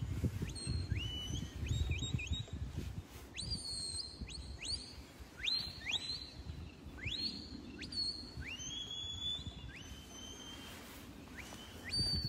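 Shepherd's whistle commands to a working sheepdog gathering sheep. A series of short whistles, each sweeping sharply up and then holding briefly, comes about every half second to second, with a few longer held notes in the second half.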